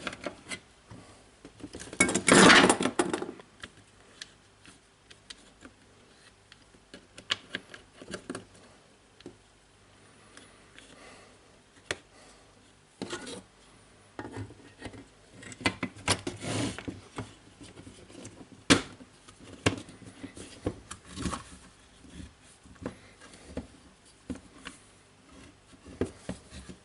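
Plastic jigsaw housing and parts being handled and fitted together: scattered clicks, taps and light knocks, with a louder rubbing scrape lasting about a second near the start.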